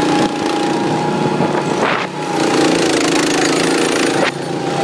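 Go-kart's small engine running steadily as the kart drives along, a continuous buzz heard from the seat. It is broken by two short rushes of noise, about two seconds in and again a little past four seconds.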